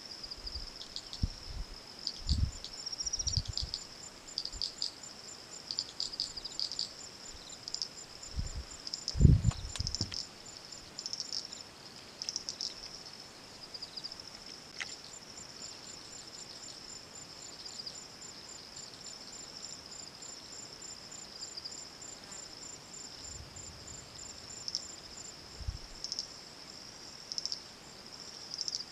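Steady high-pitched chorus of insects trilling, with a faster ticking call above it. Several dull low thumps come in the first half, the loudest about nine seconds in.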